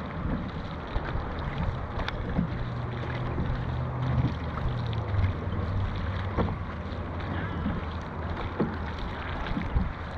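Dragon boat under way: water rushing and splashing with scattered knocks, over wind noise on the microphone and a low hum.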